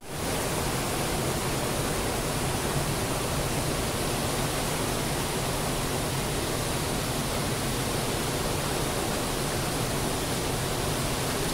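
Muddy floodwater spilling over from a weir that is over capacity, rushing fast across the ground right by the microphone: a steady, even rush of water.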